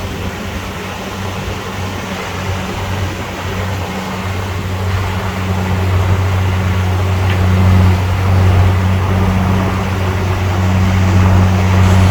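Heavy earthmoving machine's diesel engine running with a steady deep drone, getting louder from about four seconds in as it is worked harder.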